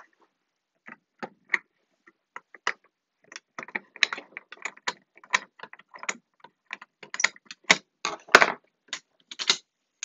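Irregular metallic clicks and rattles of a screwdriver and the metal cover and mechanism of a Gamewell fire alarm pull station being worked open by hand. The clicks come sparsely at first, grow busier about three and a half seconds in, and are loudest a little after eight seconds.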